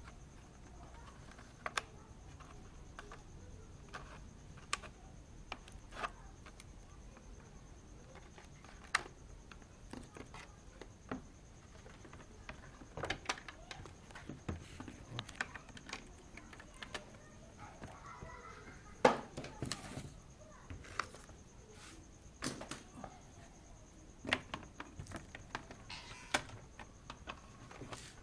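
Irregular light clicks and taps, as of parts being handled, coming more often in the second half, with the loudest knock about two-thirds of the way in. A faint steady high whine sits underneath.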